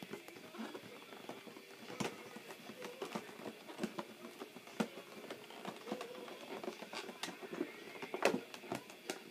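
Plastic toy packaging and small action-figure accessories being handled: scattered light clicks and rustles, with a few sharper clicks about two seconds in, near the middle and near the end.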